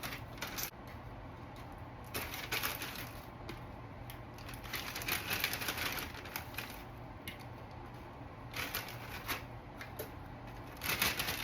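Irregular crackling rustles and light clicks of vanilla wafers being handled and laid out one by one in a layer.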